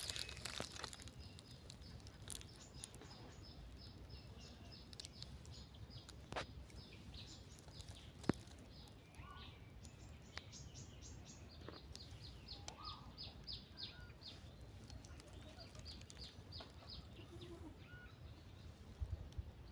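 Faint rural ambience with a bird calling in runs of short, rapid, high chirps, and a few sharp clicks.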